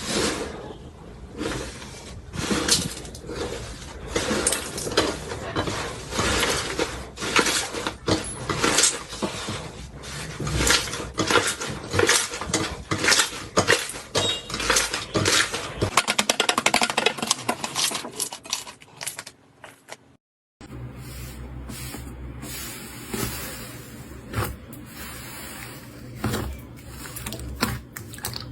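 Slime being pressed and squeezed by hand, with a dense crackling of small pops and clicks typical of crunchy slime. The sound cuts off for a moment about twenty seconds in, then turns into quieter, sparser squishing and popping over a low hum.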